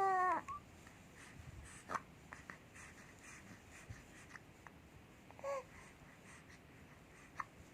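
Hiccups: a short squeaky hiccup that falls in pitch right at the start, another about five and a half seconds in, and a few faint clicks between them.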